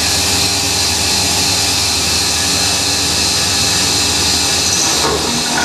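Mini milling machine running steadily, its spindle motor whining and the milling cutter cutting the tabs around a part.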